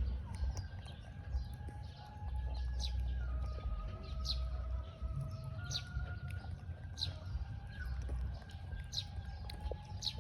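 Birds chirping: short, high, falling chirps repeating about once a second over a low rumble.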